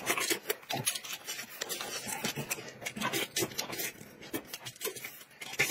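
Close-miked eating sounds: a man chewing and tearing at a piece of chicken held in his hands, an irregular run of small clicks and crackles.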